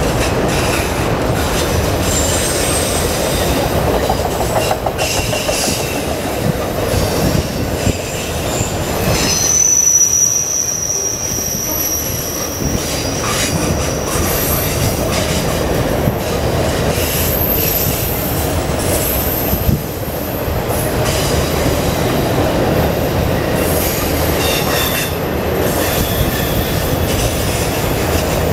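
Autorack cars of a passing freight train rolling by on curving track: a steady rumble of wheels on rail with scattered clanks. High thin wheel squeal comes and goes, strongest for a few seconds about a third of the way through.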